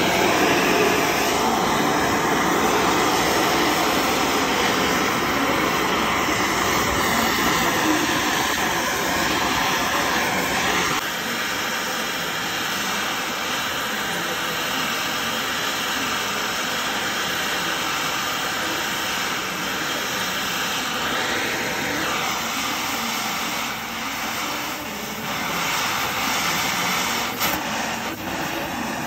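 Oxy-fuel heating torch flame burning with a steady rushing hiss as it heats spots on a steel beam, heat-straightening the beam's welding distortion.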